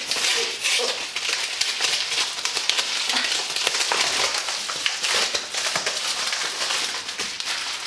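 A yellow padded paper mailer being pulled open by hand, its paper crinkling and crackling without pause.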